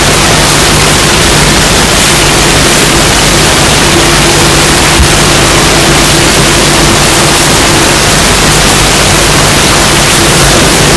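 Loud, steady hiss of static-like noise with a low steady hum beneath it, unchanging throughout.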